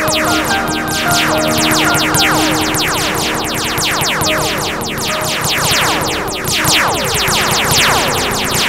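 Electronic music with held synthesizer tones under a steady stream of laser 'pew' sound effects: quick falling-pitch zaps, several a second.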